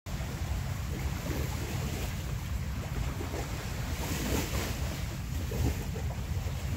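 Wind buffeting the microphone: a steady, fluttering low rumble under a soft outdoor hiss, swelling slightly midway.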